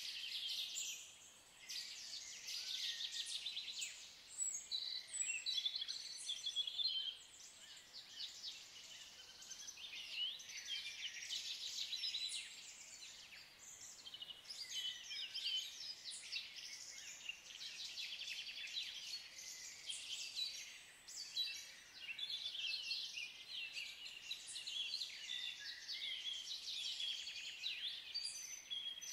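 Several woodland birds singing and calling over one another: a continuous mix of high chirps and rapid trills.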